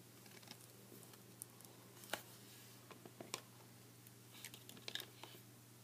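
Faint scattered clicks and taps of small plastic action figures and accessories being handled, with the sharpest click about two seconds in and a quick cluster near the end, over a steady low hum.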